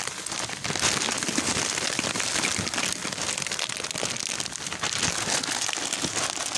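Potatoes deep-frying in hot oil in a large aluminium wok: a steady, dense crackling sizzle.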